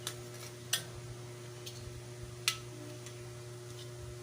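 Three sharp clicks and taps of a small transformer being handled on the workbench before it is taken apart, the loudest about two and a half seconds in, over a steady low electrical hum.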